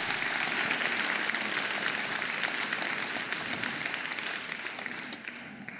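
Congregation applauding, dense clapping that slowly dies away near the end.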